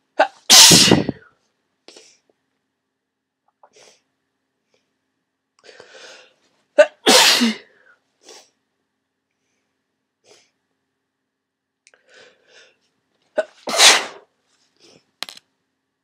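A person with a heavy head cold sneezing: three big, snotty sneezes about six seconds apart, each with a short catch of breath just before it.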